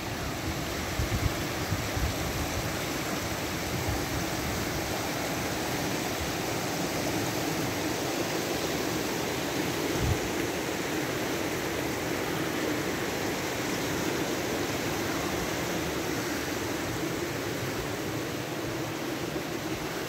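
Steady rushing of a small rocky creek flowing, with a single dull low thump about halfway through.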